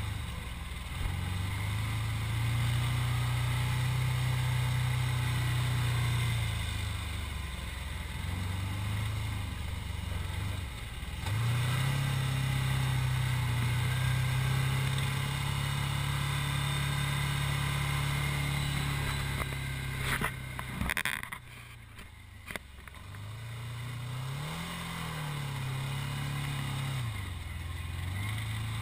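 ATV engine running under throttle on sand, its pitch rising and falling as it revs up and eases off several times. About two-thirds of the way through the engine drops low for a moment, with a few sharp knocks, before revving up and down again.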